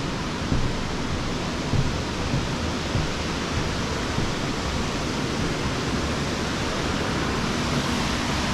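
Steady rushing of Vickery Creek's water over rapids and falls, an even hiss with a few soft low bumps.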